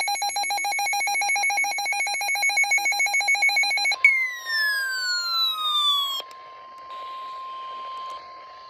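Weather radio emergency alert tones: a loud, rapidly pulsing electronic alarm for about four seconds, then a tone sweeping down in pitch over about two seconds, ending in a click. A quieter steady single tone, the NOAA Weather Radio warning alarm tone, holds until the end.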